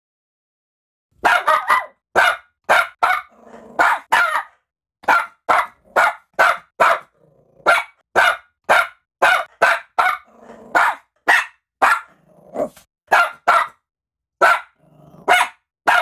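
Barking-chihuahua ringtone: a chihuahua yapping in short, sharp barks, about two a second, with low growls between some of them. It starts about a second in, after silence.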